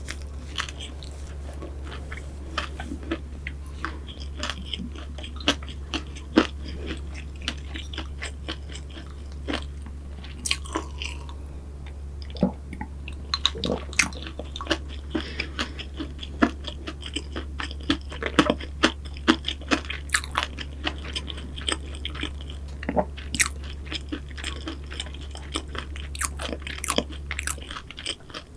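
Close-miked eating of pastries (cruffins and financiers): biting and chewing with many small crunches and wet mouth clicks, irregular throughout. A steady low hum runs underneath and cuts off near the end.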